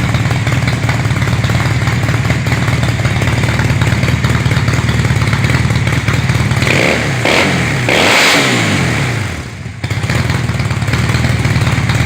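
Honda CB chopper motorcycle engine idling steadily, revved up twice in quick succession about two-thirds of the way through, then settling back to idle; the engine is running well.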